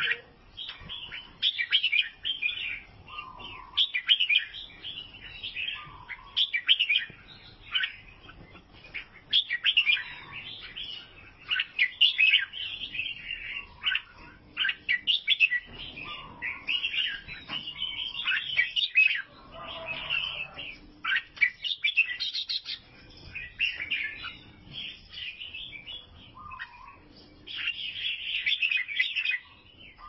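Albino sooty-headed bulbul (kutilang) chirping and calling. It gives quick runs of short, bright chirps with brief pauses, and a lower note every few seconds.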